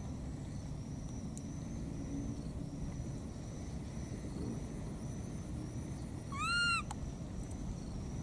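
A baby monkey gives a single short, high, clear call about six seconds in, its pitch rising and then falling in an arch, over a steady low background rumble.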